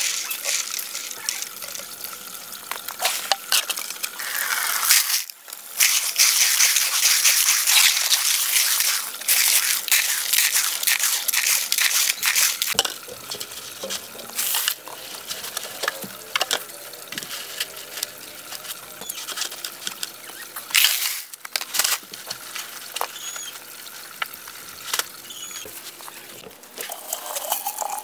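Hands sloshing and splashing in a plastic basin of water while washing filter media, with scattered clicks and knocks. The splashing is loudest for several seconds in the first half, then gives way to quieter handling and rustling.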